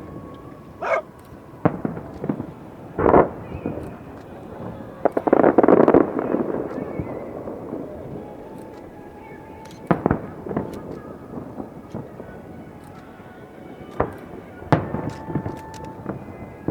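Fireworks display: aerial shells bursting in separate sharp bangs a second or several apart. About five seconds in comes a louder cluster of rapid bursts lasting about a second.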